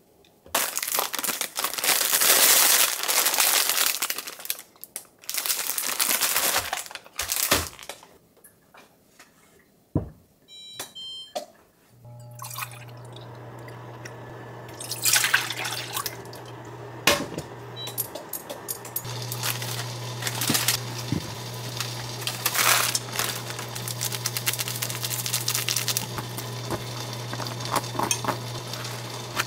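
Liquid pouring from a jug into a stainless steel cup and a pot. About ten seconds in there is a short run of electronic beeps from the induction cooktop being switched on, then the cooktop's steady low hum. Over the hum, chopsticks clink against the pot as ramen noodles are stirred in the heating liquid.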